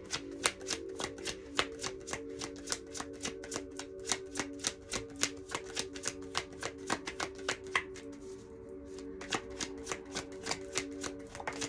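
Tarot cards being shuffled by hand: a rapid run of card clicks and flicks, several a second, with a brief lull about two-thirds of the way through. Background music with long held notes plays underneath.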